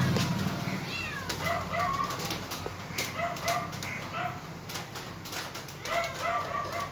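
Kittens mewing: many short, high mews in quick runs of two or three, with a few clicks between them.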